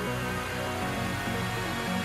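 Background electronic music with sustained held notes.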